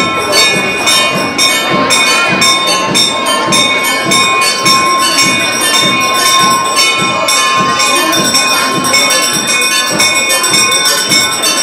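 Temple bell rung rapidly and without a break, about three strokes a second, its ringing tones sustained between strokes.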